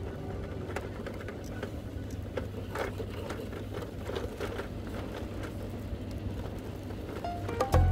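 Plastic wheels of a Bruder toy truck rolling over rough paving: a steady low rumble with irregular small clicks and rattles.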